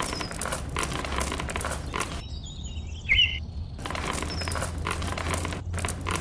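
Small coloured pebbles dropped by hand, clattering onto one another and onto sand in two runs of rapid rattling with a pause between them. A brief high chirp sounds about three seconds in.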